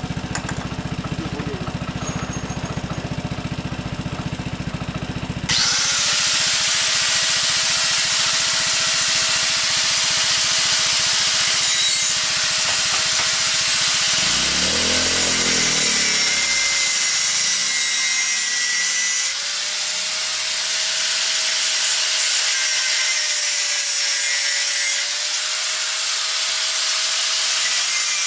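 Angle grinder with a cut-off disc cutting through a chair's steel tube frame: a loud, steady grinding hiss over the motor's whine, starting suddenly about five seconds in after a low engine-like rumble.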